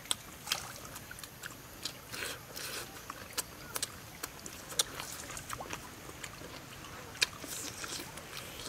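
Close-up eating sounds: a person chewing and biting food, with irregular sharp mouth clicks and lip smacks.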